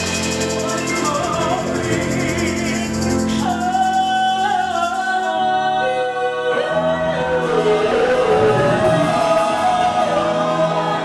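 Gospel vocal group of men and women singing in harmony, backed by a live band. About halfway through, a voice slides up and down through a run over the held chord.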